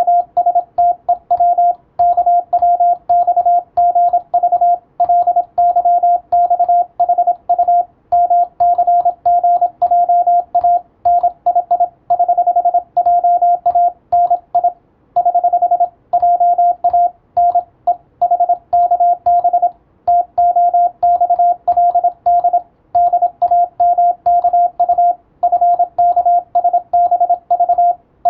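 Morse code (CW) as a single steady tone keyed on and off in quick dots and dashes, with short gaps between characters and longer breaks between words.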